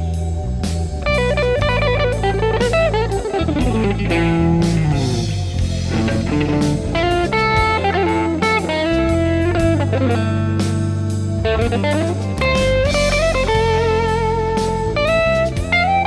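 A clean Fender Stratocaster electric guitar, with delay and chorus, plays a melodic solo over a slow blues backing track of bass and drums. The single-note lines slide and bend, with vibrato on held notes, and a long note rings near the end.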